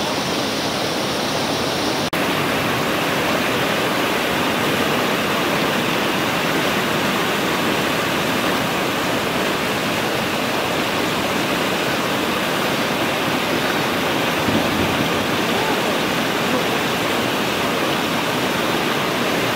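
Floodwater pouring over a low dam spillway and churning through white-water rapids: a steady, loud rush of water.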